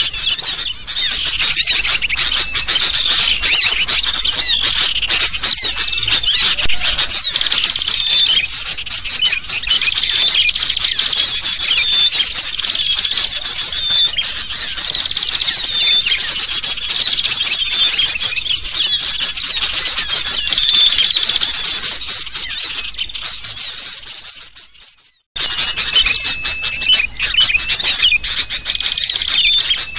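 Bird-lure recording of sooty-headed bulbuls (kutilang) calling noisily in agitation, mixed with the dense chatter of many small birds, with a falling call about every two seconds. Late on it fades out to silence for a moment and starts again, as a looped track does.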